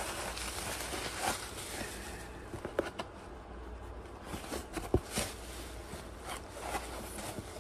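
Bubble wrap and a cardboard box being handled while unpacking: plastic rustling and crinkling, fading after the first second or so, with a few sharp clicks midway.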